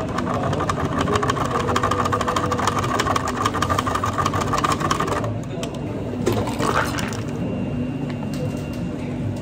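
Milky drink poured over ice into a plastic cup, a dense rattling, crackling pour that stops suddenly about five seconds in.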